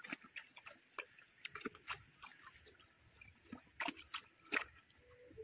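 Labrador retriever lapping water with its tongue: faint, irregular wet slurps and clicks, with two louder laps about four seconds in.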